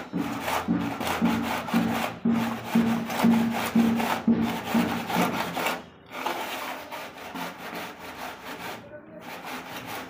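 Rhythmic hand scraping on the sand-and-cement floor bed laid for tiles, about two strokes a second, each with a low squeaky tone in the first half. After a short pause the strokes go on fainter and less even.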